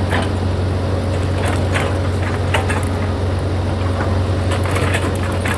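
Sany hydraulic excavator's diesel engine running steadily, with short, sharp clinks and scrapes throughout as it works.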